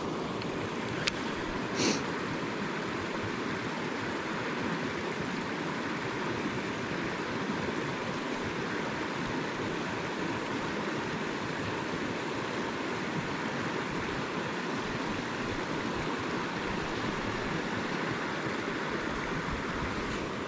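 Mountain stream water rushing steadily, with two brief clicks about one and two seconds in.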